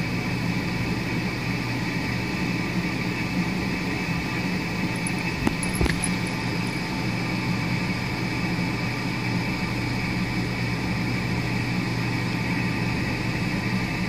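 Steady mechanical hum made of several fixed tones, with one brief click about six seconds in.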